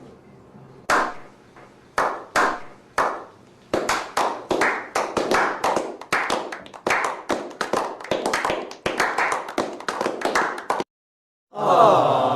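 Hand-clapping sound effect: a few single claps about a second apart, then quicker continuous clapping that stops abruptly about eleven seconds in. Near the end a different short effect with falling pitch begins.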